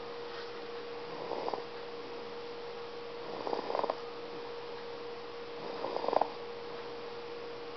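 Snoring: three short snores about every two and a half seconds, with a steady pure tone running underneath.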